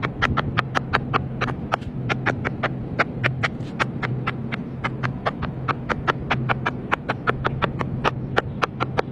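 Pop-it fidget toy bubbles being pressed one after another in quick succession, a steady run of sharp little pops at about five or six a second.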